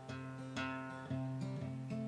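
Acoustic guitar strumming chords at a steady pace, about two strums a second.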